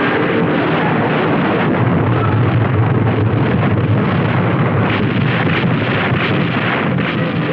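Battle sound effects of a ship under air attack: a continuous rumble of explosions, heaviest a couple of seconds in, with a run of sharper bangs about five to seven seconds in.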